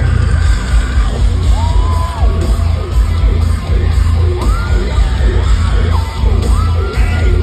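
Live rock band playing loud through a concert PA: heavy pulsing bass with electric guitar, under yelled and sung vocal lines that come in several times.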